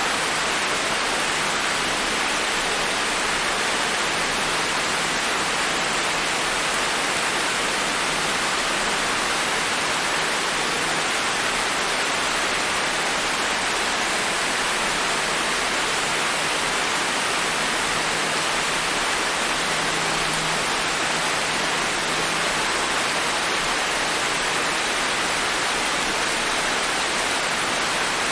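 Steady rain falling, an even continuous hiss with no single drops standing out.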